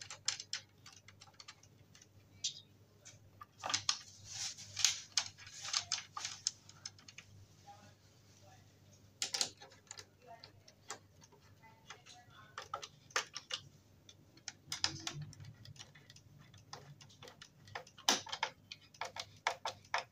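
Hand screwdriver driving screws into a wooden baby cot frame: a run of small, irregular clicks and ticks as the bit turns the screws in.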